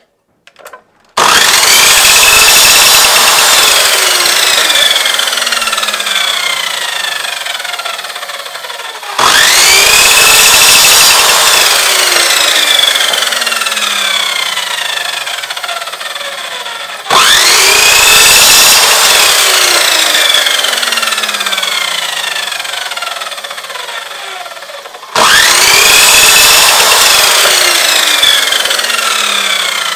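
Electric mitre saw switched on four times, about eight seconds apart, chopping short pegs off a wooden dowel. Each time the motor starts abruptly with a quick rising whine, then the blade coasts down with a long falling whine.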